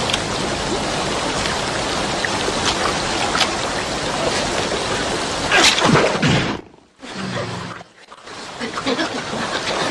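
Fast river water rushing over rocks, a steady wash of noise, with a louder falling swoosh a little past halfway. The sound cuts out briefly twice soon after.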